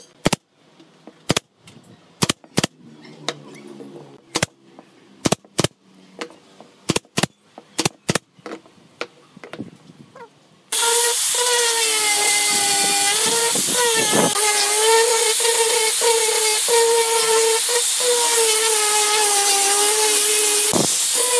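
A series of sharp knocks and taps as a glued wooden frame is handled on a wooden workbench. About halfway through, an angle grinder fitted with a sanding disc cuts in and runs steadily with a whine that wavers slightly as it sands the wooden frame.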